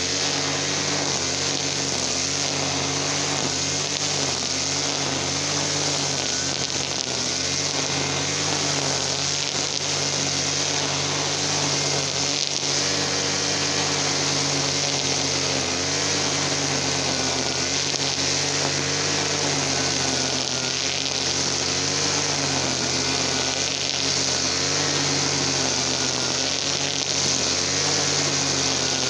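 Easyman TL33 two-stroke petrol brush cutter engine running steadily at speed, its pitch wavering slightly.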